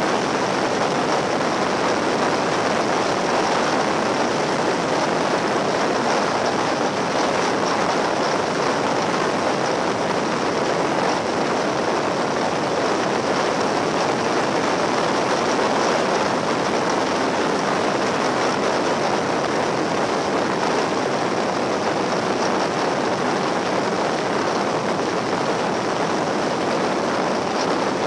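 Steady rush of wind and road noise on board a Yamaha XT1200Z Super Ténéré motorcycle riding at speed.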